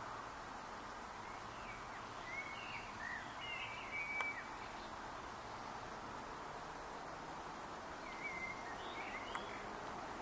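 Steady background hiss with two short bouts of faint, high, chirping calls, the first a couple of seconds in and the second near the end, plus two sharp clicks.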